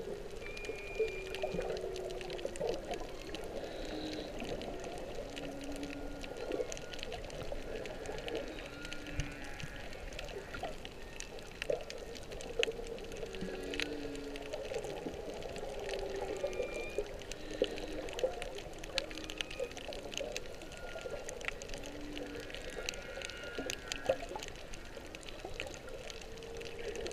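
Humpback whale song heard underwater: a repeating sequence of short low moans and higher squeals, recurring every few seconds, over a steady water hiss with faint crackling clicks.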